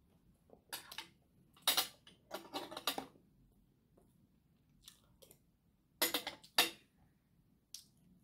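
Eating sounds: a few short, scratchy clusters of noise from chopsticks and a spoon working in plastic food containers and from chewing, with quiet gaps between.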